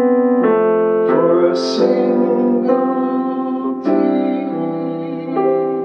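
Yamaha Arius digital piano playing slow, held chords, a new chord about every second. The sound fades gradually through the second half as the piece closes.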